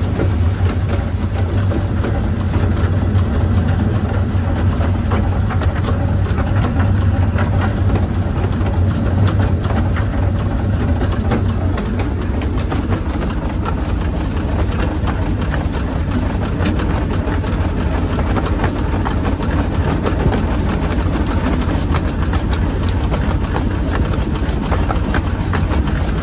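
Miniature steam locomotive heard from its footplate while running along the line: a steady rumble of the engine and wheels on the rails, with scattered clicks and some steam hiss.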